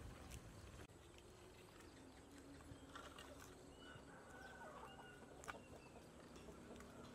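Faint chicken clucking in the background, a few short calls a few seconds in, with occasional sharp clicks, the loudest about five and a half seconds in.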